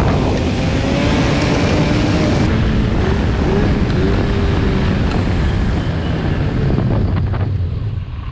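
Arctic Cat snowmobile engine running at trail speed, with heavy wind noise buffeting the helmet-mounted microphone. The wind hiss falls away near the end.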